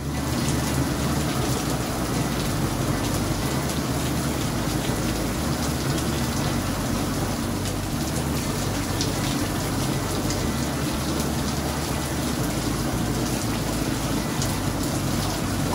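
Heavy rain pouring down in a steady, even hiss during a downpour.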